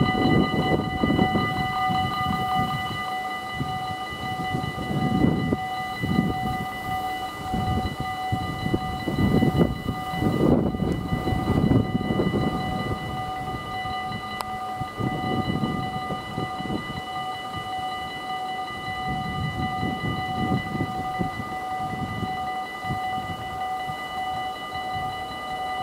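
Level crossing warning bells ringing steadily as a regional stopping train rumbles past over the crossing, the rumble rising and falling in loudness.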